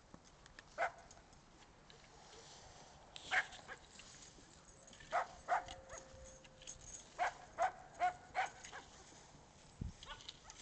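Dog barking: about eight short barks, single ones at first, then a pair and a quicker run of four.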